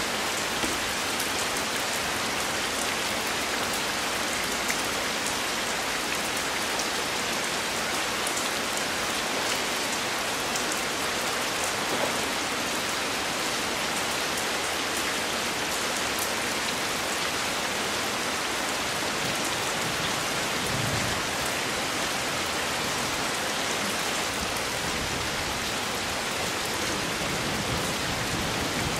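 Heavy rain falling steadily on a pool and wet rock, a dense even patter of drops.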